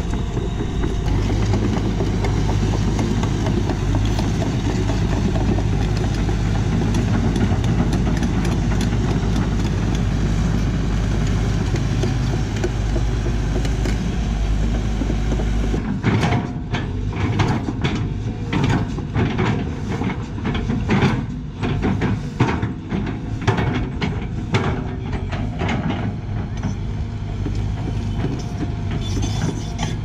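Sany SY215C crawler excavator working, its diesel engine running steadily. About halfway through, irregular scrapes and knocks join it as the bucket works across soil and stones on an earth slope.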